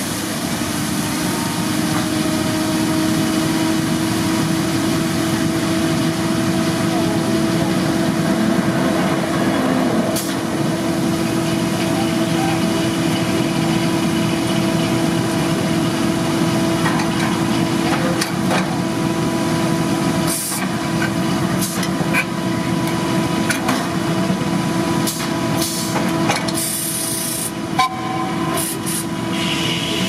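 Steam-driven circular sawmill running steadily with a constant hum, and several short, sharp hisses of compressed air in the second half, typical of the mill's air-powered set works, log dogs and kickers.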